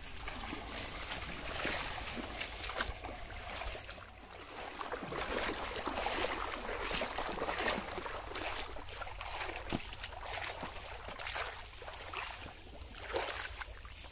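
Shallow river water splashing and sloshing around a person wading through it, in uneven bursts.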